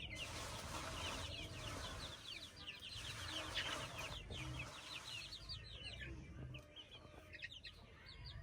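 A flock of young chicks peeping: many short, high chirps overlapping in a continuous chorus, thinning out near the end.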